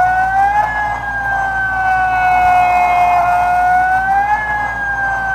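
A home-made emergency alert alarm: a siren-like wailing tone that sweeps up quickly, then sinks slowly and repeats about every four seconds.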